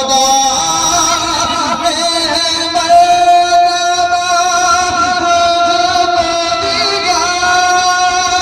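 Music: a man singing a devotional Urdu naat, drawing out one long held note with a slight waver in it near the end.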